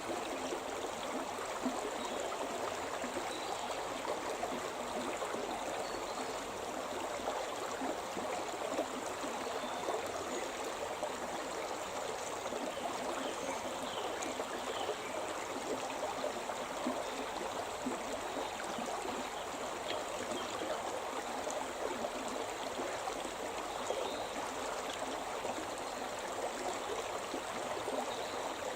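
Shimna River, a mountain river, flowing steadily as a continuous, even rush of running water.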